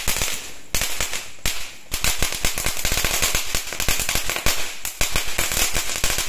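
A string of firecrackers going off: rapid cracks in quick succession, with a few louder bangs in the first two seconds.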